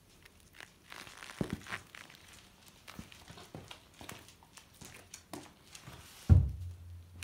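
Footsteps and scuffing, crinkling noises as a mountain bike with nearly flat knobby tyres is wheeled across a concrete floor. A heavy thump about six seconds in is the loudest sound, followed by a steady low hum.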